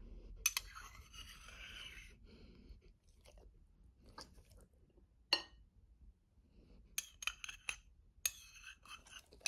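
A dog chewing a mouthful of soft homemade shepherd's pie, in irregular bursts of wet mouth clicks. A fork clinks once against a plate about five seconds in.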